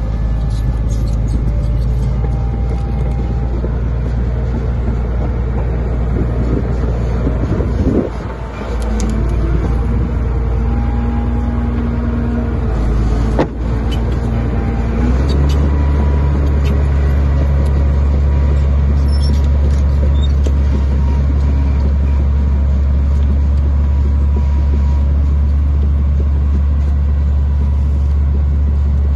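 Heavy earthmoving machine's diesel engine running steadily under work, its note dropping deeper and stronger about halfway through. A single sharp clank about thirteen seconds in.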